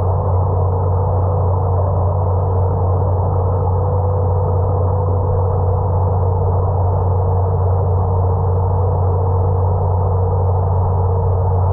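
A steady low hum with a faint held tone above it, unchanging throughout.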